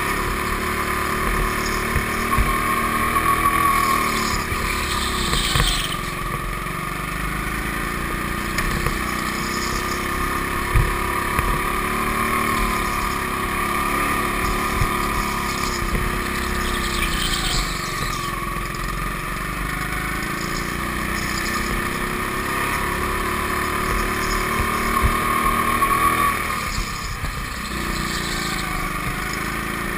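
Go-kart engine running on board, its pitch rising and falling again and again as the kart speeds up on the straights and slows for the corners.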